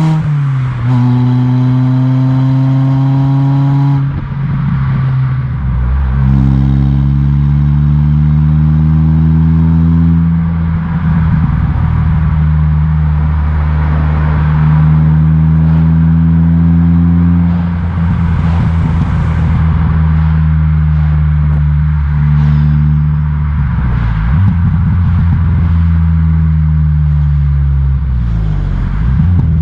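Ford Fiesta ST150's 2.0-litre four-cylinder engine running through a loud custom stainless-steel exhaust while the car is driven through the gears. The pitch rises in each gear and drops at each change, with steady cruising stretches and short spells of crackling in between.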